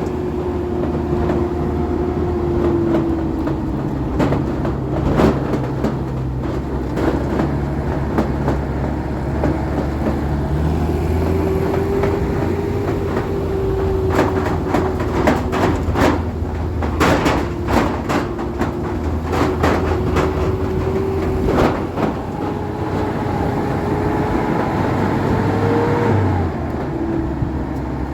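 A vehicle's engine running steadily while it drives over a rough road, with frequent rattles and knocks. The engine note climbs briefly near the end, then falls.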